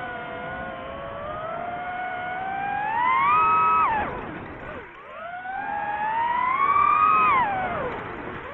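DJI FPV drone's brushless motors whining, the pitch climbing as the throttle goes up, dropping sharply about four seconds in, then climbing again and falling off near the end.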